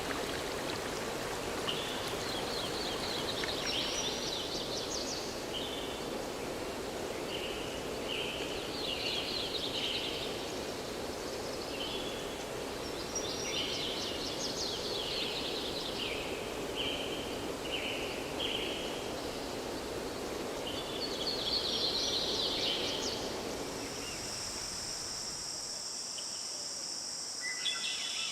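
Running water with songbirds singing short repeated trilled phrases over it. About 24 seconds in, the water sound stops and a steady high insect chorus takes over.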